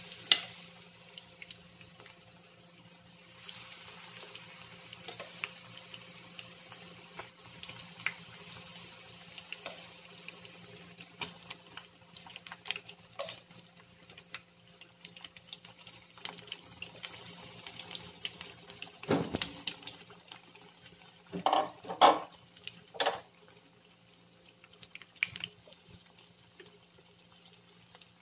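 Battered chicken pieces frying in oil in a wok, sizzling with a constant crackle of small pops. A few louder knocks and bursts of crackling come about two-thirds of the way through.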